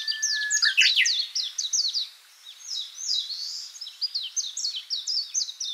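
Birds chirping: a rapid run of short, high, downward-sweeping chirps, with a thin steady whistle at the start and a brief lull about two seconds in.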